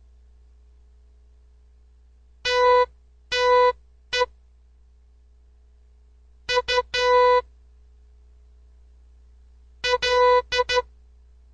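Morse code beeps in a buzzy, steady electronic tone, sent as three letters with about two seconds of quiet between them. The first is dash-dash-dot (G), the second dot-dot-dash (U), and the third is a group of four short and long beeps.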